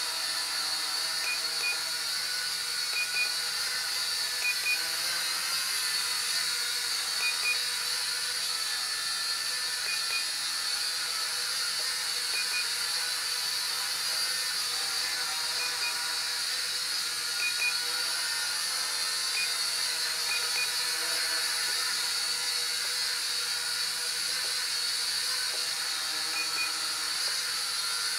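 Polaroid PL300 quadcopter hovering, its propellers and motors giving a steady high-pitched whine. Short double beeps come at irregular intervals of one to three seconds, typical of the remote's trim buttons being pressed while the drift is corrected.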